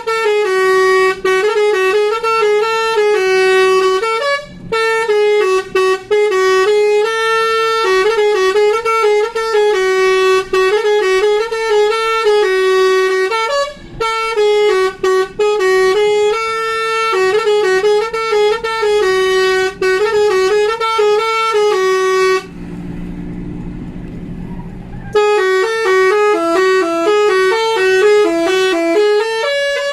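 Bus 'telolet basuri' musical horn playing a fast, jumping tune almost without pause. It breaks off for about three seconds near the end, leaving a lower hum, then starts again.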